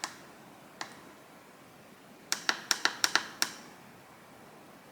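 Hour and minute buttons on a Russell Hobbs Brew & Go coffee maker's control panel clicking as the clock is set: one press about a second in, then a quick run of about seven presses near the middle.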